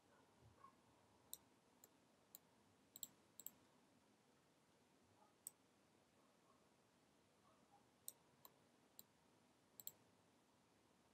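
Scattered faint, sharp clicks of a computer mouse and keyboard being worked, about a dozen, some in quick pairs, over near-silent room tone.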